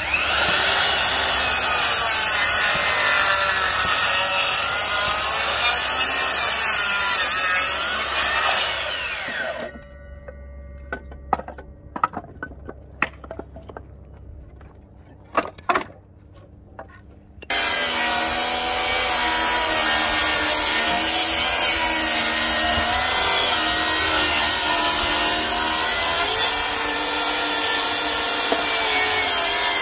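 A Makita cordless sliding miter saw cutting wood, its blade whine falling in pitch as it coasts down about nine seconds in. There follow several seconds of wood knocks and clatter. Then a DeWalt cordless table saw starts up suddenly and runs steadily, cutting a board.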